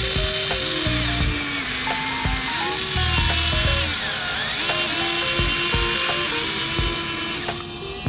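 Huina remote-control toy excavator's electric gear motors whirring as the arm digs into sand and lifts a loaded bucket, the whine gliding up and down in pitch as the moves change. Background music with a steady beat plays over it.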